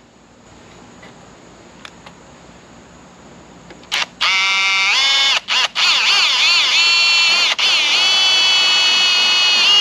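Milwaukee cordless drill whining as it bores a 3/16-inch hole through the sheet-metal cover of a wiring trough, starting about four seconds in. The motor pitch rises and dips with trigger and load, with a few brief stops.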